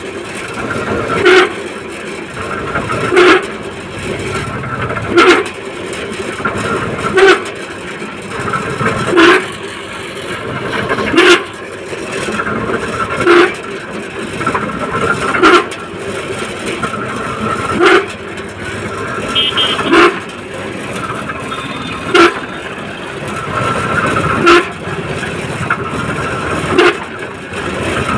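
Loud ringing metallic bangs repeating about every two seconds, thirteen in all, over the steady running of site machinery.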